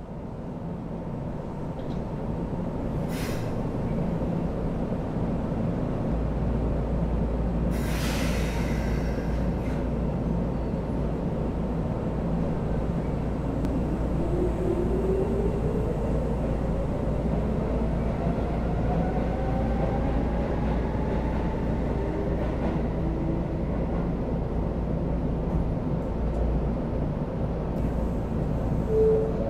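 Inside a Shinkeisei Series 8900 electric train car standing at the platform: the onboard equipment hums steadily. There is a short hiss of air about eight seconds in, and a machine tone rises in pitch around the middle.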